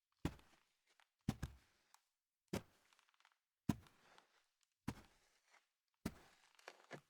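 Slow, evenly paced footsteps, each a sharp heel strike, a little over a second apart.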